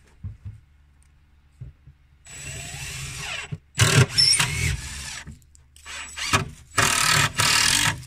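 DeWalt cordless drill running into a plywood panel in several runs of about a second each, with short pauses between them.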